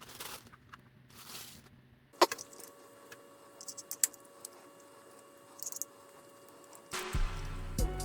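Small clicks and light rattles of hard parts being handled, with one sharp click a couple of seconds in. Background music with a heavy bass comes in near the end.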